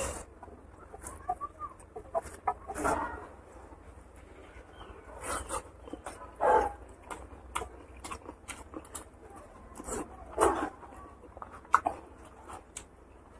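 Eating by hand: fingers squishing rice into curry gravy, then wet smacking and chewing as handfuls go into the mouth, in short irregular bursts.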